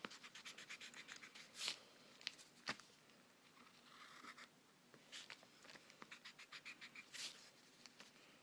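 Faint scratching of a drawing tool on paper. It comes in quick runs of short strokes, about ten a second in the first second and a half and again from about five to seven seconds in, with a few longer strokes between.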